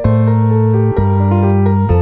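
Background instrumental keyboard music, its chords changing about once a second.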